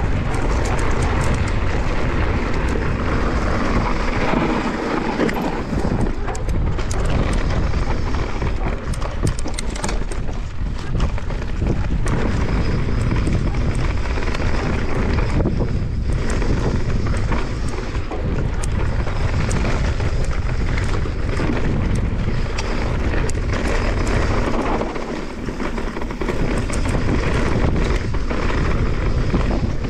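Wind buffeting the camera microphone as a Santa Cruz Megatower full-suspension mountain bike descends a gravel and dirt trail at speed, with tyres on loose ground and a steady run of small clicks and knocks from the bike rattling over stones.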